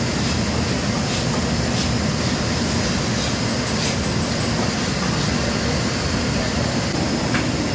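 Steady noise of a commercial kitchen's wok burners and exhaust hood fans running, with a few light clinks of metal utensils on steel.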